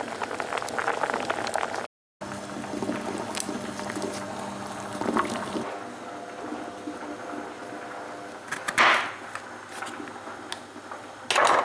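Food-preparation sounds in a kitchen: liquid bubbling and sloshing with scattered light clicks, and two short, loud hissing bursts near the end.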